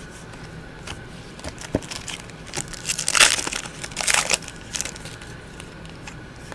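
Trading cards being handled and shuffled, crinkling and rustling in quick bunches that are loudest a little past three seconds in and again around four seconds.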